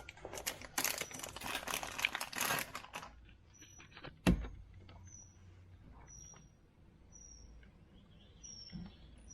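Dense clicking and rattling of the small plastic door-light housing and its connector being handled, then a single sharp knock about four seconds in. After that, a bird's short, high, falling chirps repeat about once a second.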